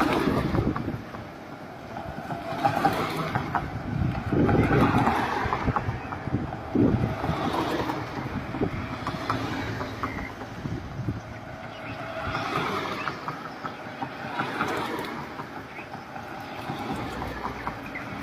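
Road traffic going past, vehicle engines and tyre noise swelling and fading several times, with voices mixed in.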